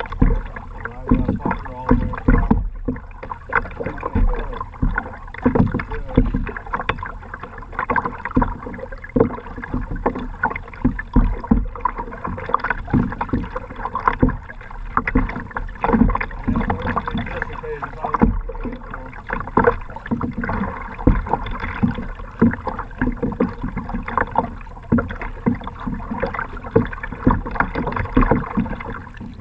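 Choppy lake water slapping and splashing against a kayak's bow in quick, irregular splashes as the boat moves through the waves.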